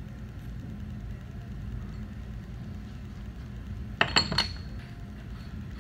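A quick cluster of three or four sharp metallic clinks about four seconds in, as the metal fishneck of a JDC pulling tool is fitted onto its skirt.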